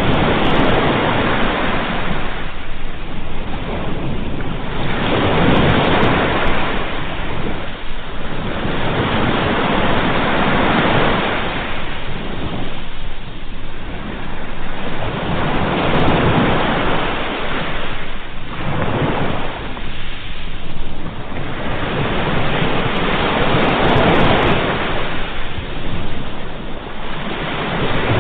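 Ocean waves breaking on the shore, the surf swelling and falling back in a steady rhythm about every four seconds.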